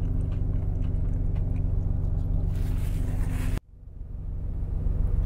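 Steady low hum of an idling truck engine. It cuts out abruptly about three and a half seconds in and fades back up over the next second or so.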